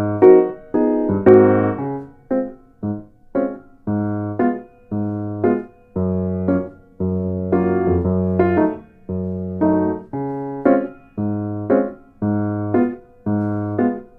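Background music: piano chords struck in a steady rhythm, each dying away, over low bass notes.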